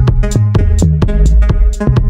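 Background electronic music with a steady drum-machine beat and sustained synth notes.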